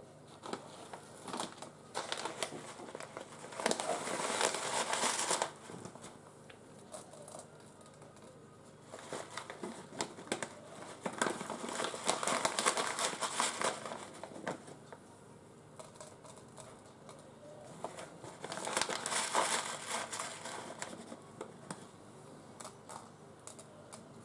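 Plastic crinkling and rustling in several bursts a few seconds apart, with many small clicks, as plastic packaging or sheeting is handled.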